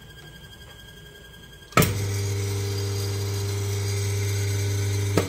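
Mahlkönig EK43S coffee grinder running empty, without beans: a click about two seconds in as it is switched on, then a steady motor hum, and a second click near the end as it is switched off.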